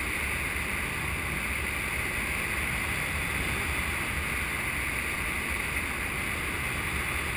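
Steady rush of wind past a paraglider in flight, buffeting the camera's microphone: an even hiss over a low rumble, unchanging throughout.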